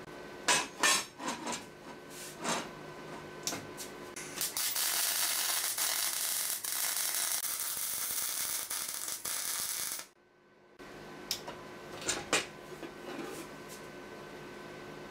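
Steel angle iron clanking against a steel welding table top, then a welding arc sizzling and crackling steadily for about five seconds before cutting off suddenly. The steel clanks again as the welded piece is handled.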